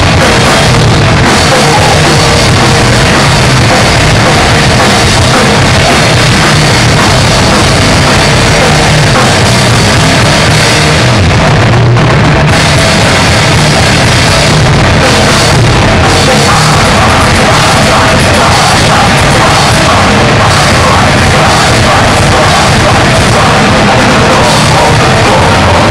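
Grindcore band playing live at full volume: distorted guitars over a drum kit, a dense unbroken wall of sound.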